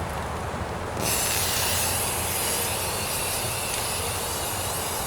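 Aerosol can of automotive primer spraying in one long, steady hiss that starts about a second in, over a low rumble.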